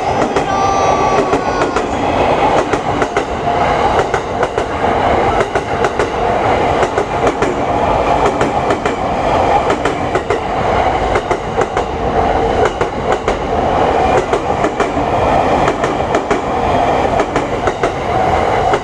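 Electric trains on the JR Yamanote Freight Line passing close by at a level crossing: a loud, steady rumble with the wheels clattering rhythmically over the rail joints.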